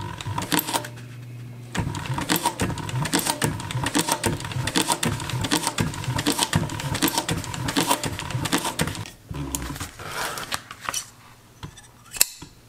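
Pfaff 1245 industrial compound-feed walking-foot sewing machine: its motor hums, then about two seconds in it starts stitching through layered material in a fast, even run of needle strokes, stopping about nine seconds in. Near the end comes a single sharp snip of scissors cutting the thread.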